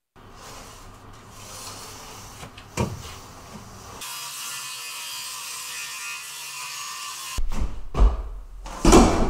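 A circular saw cutting through a thin sheet of plywood underlay for a few seconds, between bouts of handling plywood sheets: a knock early on, then, near the end, thumps as a narrow plywood strip is set down on the subfloor, which are the loudest sounds.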